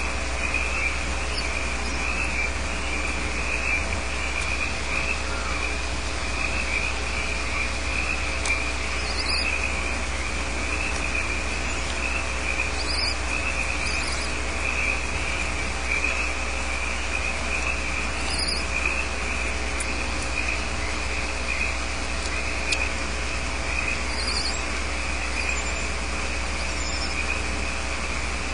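A steady, high chirring night chorus of frogs and insects outside the nest box, over a low electrical hum from the nest-camera microphone. A few short, high hisses break in, spaced a few seconds apart.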